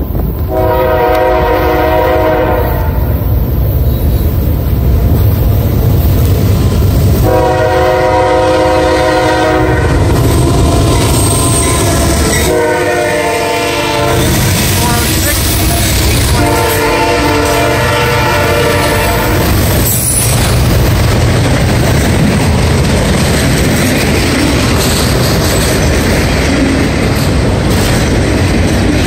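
Diesel freight locomotive air horn sounding long, long, short, long, the standard grade-crossing signal, as the train approaches and the lead units pass. The locomotives' engines and the freight cars then rumble and clatter steadily over the rails.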